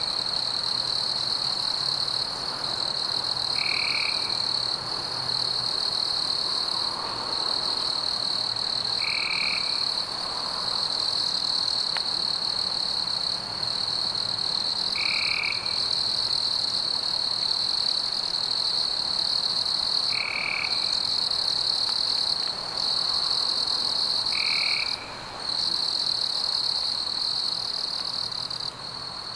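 Night chorus of insects and frogs: a steady high-pitched insect trill throughout, with a short frog call repeating about every five seconds, five times.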